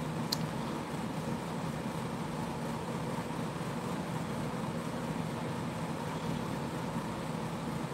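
Steady low background hum with hiss, with one faint tick just after the start.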